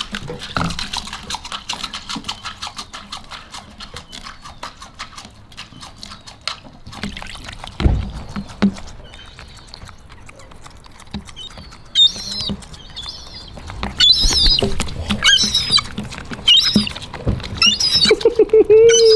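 Gulls pecking and tapping at a window with rapid sharp clicks, followed by a run of short, high-pitched calls from the gulls from about halfway through.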